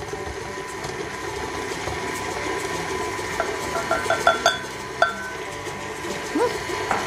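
KitchenAid Artisan stand mixer running steadily, its beater creaming margarine in a stainless steel bowl as sugar is poured in. A quick run of metallic clinks comes about halfway through.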